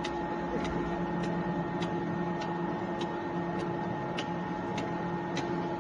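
Automatic dumpling-wrapper pressing and cutting machine running: a steady motor hum with a light, regular click about every 0.6 seconds as it cuts the dough sheet into square wrappers.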